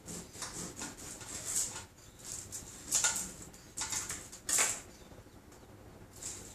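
A knife slicing through a lemon on a cutting board: several short scraping cuts, the loudest about three and four and a half seconds in.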